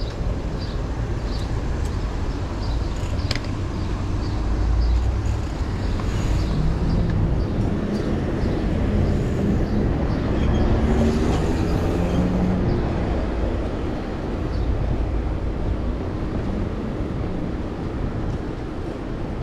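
City street traffic with a steady low rumble. About six seconds in, a vehicle's engine speeds up, its pitch rising for several seconds.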